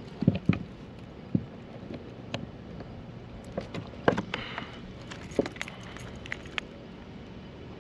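Scattered light clicks and knocks of fishing gear being handled on a kayak, a few sharper ones about a second apart, over a steady low wash of water and wind.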